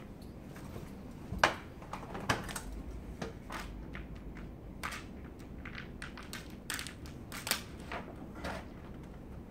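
Work handling noise during a vinyl window-film install: irregular short taps, clicks and plastic crinkles as the film is smoothed by hand onto the glass, with a sharp knock about one and a half seconds in.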